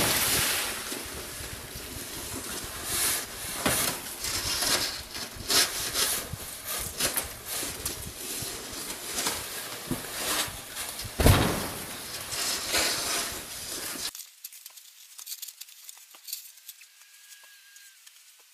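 Snow shovels and push scoops scraping and shoving deep snow across a roof, with snow sliding and pouring over the eaves. There is a loud thump about eleven seconds in. About fourteen seconds in the sound cuts to a much quieter stretch of faint scrapes.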